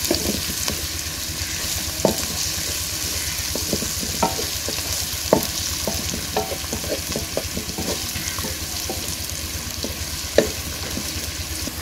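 Chopped onions sizzling in hot oil in a metal karahi as they fry toward golden brown, stirred and scraped with a wooden spatula. The spatula knocks irregularly against the pan, most sharply about two, five and ten seconds in.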